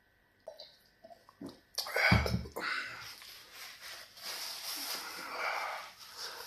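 A few faint mouth clicks, then a short loud rush of breath-like noise about two seconds in. After it comes softer rustling and breathing as a paper tissue is wiped over the face, nose and mouth.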